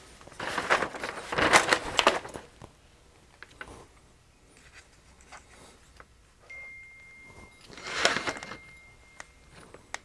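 A large circuit board in its metal carrier being turned over by hand and set down on paper: rustling and scraping, loudest in the first two seconds, with another short rustle about eight seconds in and a few light clicks.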